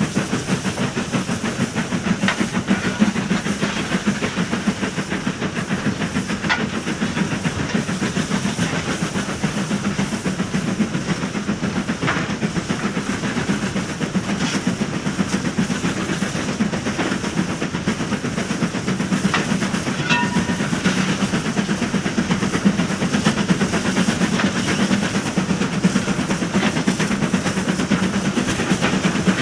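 Steam train running on the rails: a steady, loud rumble with fast, dense clatter and hiss, and a few sharp clicks. A brief high pitched tone sounds about twenty seconds in.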